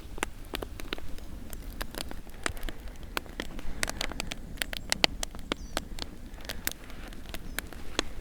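Wood fire in a fire pit crackling, with irregular sharp pops and snaps over a low steady rumble.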